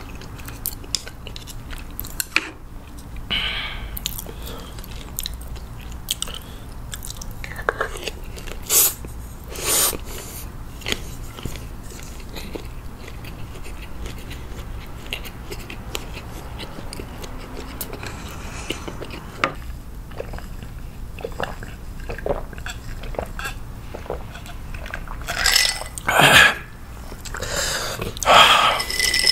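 Close-miked chewing of a mouthful of instant stir-fried noodles and air-fried Vienna sausage: soft wet mouth clicks and smacks. Near the end come a few louder sounds of swallowing a drink.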